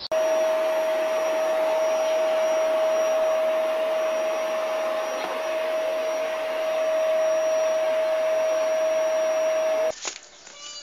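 An electric motor running steadily, one constant whining tone over an even hiss, which cuts off abruptly near the end.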